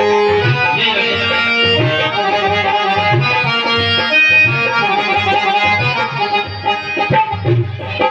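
Live Indian film-song accompaniment with no singing: an electronic keyboard plays a held, reedy, accordion-like melody over a steady dholak beat.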